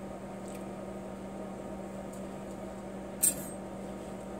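Steady electrical hum from the compressor rig, with one short sharp click about three seconds in as a valve on the rig's tubing is turned to reverse the flow between the metal hydride heat exchangers.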